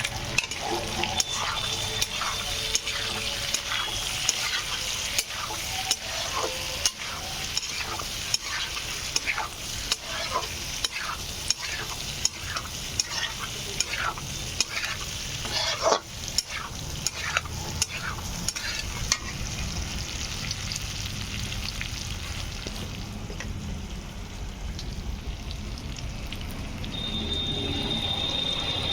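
Meat frying and sizzling in a pan while it is stirred, with a metal spoon clacking and scraping against the pan many times. The strokes thin out about two-thirds of the way through, leaving mostly the steady sizzle, and a steady high tone comes in near the end.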